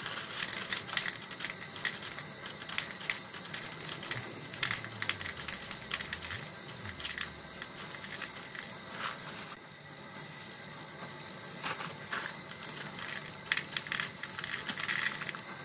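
Hop pellets shaken from a foil bag into a plastic tub on a digital scale: the bag crinkles and the pellets land in the tub as a run of irregular clicks.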